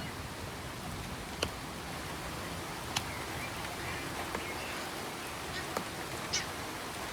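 Steady rain falling in a forest, an even hiss, with a few louder drops landing close by as sharp single ticks every second or two.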